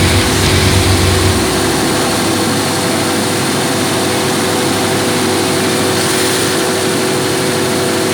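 Cummins 2000 kVA diesel generator set running steadily with no load while it warms up: a loud, even engine noise with a steady hum. The deep low rumble drops away about a second in.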